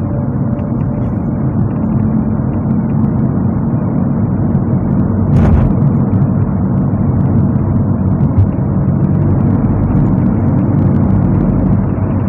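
A moving car's steady engine hum and road noise, with one brief sharp noise about five and a half seconds in.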